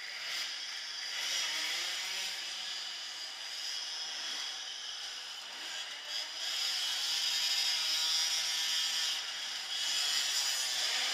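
Several small two-stroke dirt-bike engines running and revving close by, a buzzy whine that rises and falls in pitch. It gets louder from about six seconds in as one pulls away near the camera.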